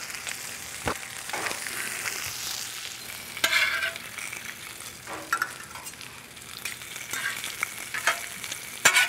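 Bacon, onions and buttered buns sizzling steadily on a hot Blackstone gas griddle's steel cooktop. A metal spatula and fork scrape and clink on the plate a few times as the bacon is turned, loudest about three and a half seconds in and again at the end.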